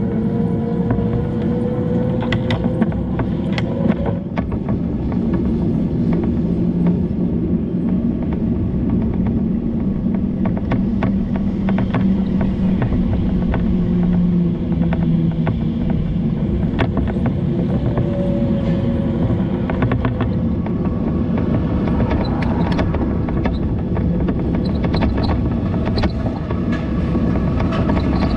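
Steady rumbling road-traffic noise, with the engine tone of a passing vehicle drifting in pitch near the start and again about eighteen seconds in.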